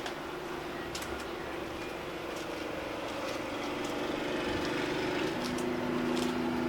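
A motor vehicle's engine running steadily, its pitch shifting about five seconds in, with a few faint ticks over it.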